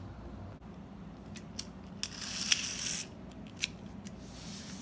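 Small die-cast toy car handled and pushed along a hard floor: scattered light clicks and two short scraping rattles of its wheels, one about two seconds in and one near the end.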